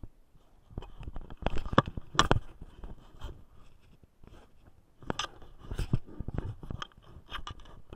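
Crunching and scraping of boots and hands on loose volcanic rock and scree during a steep scramble, in irregular steps and knocks. Two loud bursts, one starting about a second in and one about five seconds in, with a quieter gap between.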